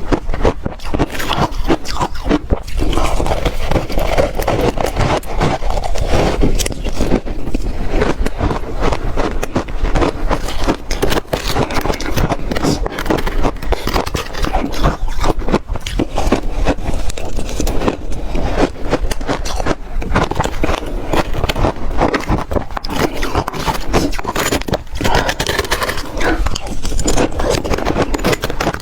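Continuous crunching of a frozen yogurt ice cake, a dense stream of cracks and crackles as the ice breaks.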